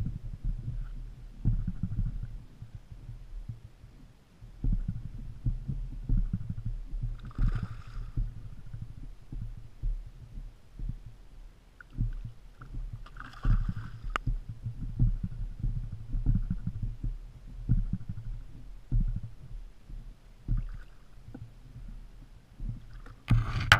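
Water lapping and knocking against a plastic kayak hull, an irregular run of low, muffled thumps. Near the end a louder splash comes in as the hooked cero mackerel breaks the surface beside the kayak.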